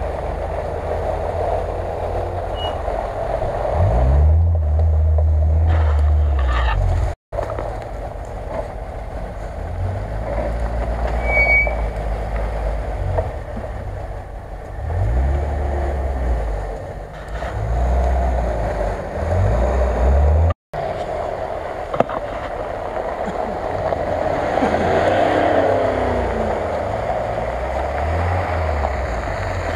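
Range Rover SUV's engine running as it drives on a dirt track, revving up in several short pulls over a steady low rumble.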